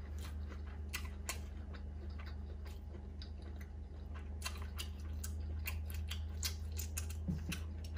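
Close-miked chewing of a Vietnamese summer roll with a tough rice-paper wrapper: many small, irregular wet mouth clicks over a steady low hum.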